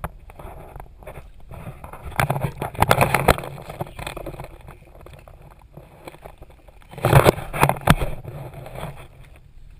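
Plastic sheeting on a crawlspace floor crinkling and scraping under someone crawling over it, with two louder spells of rustling, about two seconds in and about seven seconds in.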